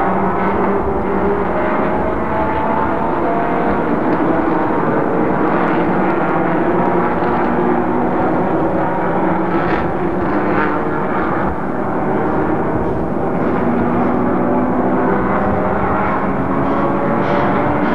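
Racing car engines running at speed, several overlapping, their pitches rising and falling as the cars accelerate and lift around the circuit.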